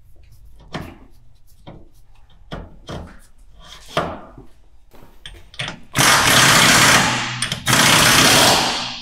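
Light metallic clicks and knocks as a wheel hub bearing is fitted onto the stub axle, then two long bursts of a power tool, about six and seven and a half seconds in, running the axle nut down onto the hub.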